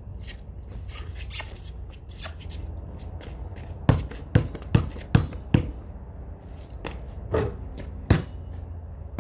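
A basketball dribbled on concrete: five quick bounces about two and a half a second, about four seconds in, then two more single bounces near the end.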